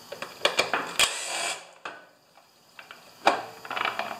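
A cordless drill-driver runs briefly, backing a screw out of the generator's control-panel cover, with small clicks of the bit and screw. Near the end come sharp knocks and clatter as the loosened cover is handled and pulled away.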